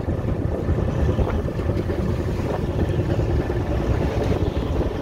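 A fishing boat's engine running steadily, with wind on the microphone.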